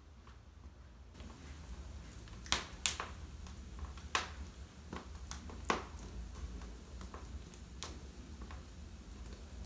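Wood fire crackling in a fireplace, with sharp pops at irregular intervals over a soft hiss; the loudest are two pops about half a second apart.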